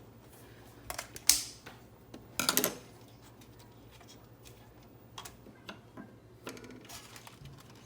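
Plastic parts of a disassembled Keurig coffee brewer being handled, giving a few sharp clicks and knocks, the loudest a little over a second in and a short clatter about two and a half seconds in, then lighter clicks.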